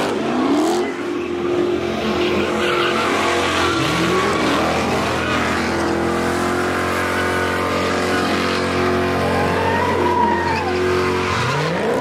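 Car engines revving hard and held at high revs while tyres squeal and spin, as cars do donuts and burnouts; the revs climb again about four seconds in and near the end.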